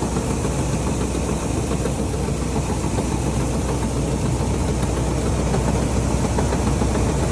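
Combine harvester running steadily while its unloading auger pours paddy grain from the spout into a trolley. The machine noise and the hiss of falling grain blend into one even sound with a strong low hum.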